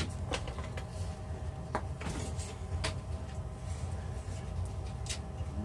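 Several short, sharp plastic clicks and knocks as the parts of a power strip are handled and fitted together, over a steady low hum from a running furnace.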